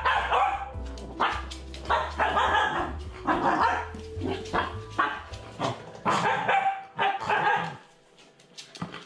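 A dog barking over and over in short, quick barks, often in pairs, over background music. The music and barking drop away near the end.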